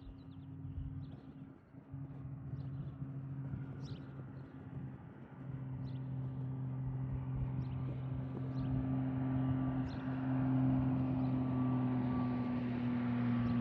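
Amphibious Cessna A185F's turbo-normalized six-cylinder piston engine and propeller on landing approach: a steady low drone that grows steadily louder as the plane nears.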